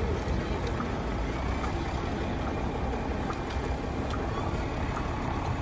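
Steady city-street background noise: a low traffic rumble with faint scattered sounds from passers-by.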